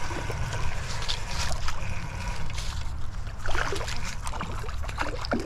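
Steady low wind rumble on the microphone, with a few faint clicks while a hooked crappie is played on a spinning rod.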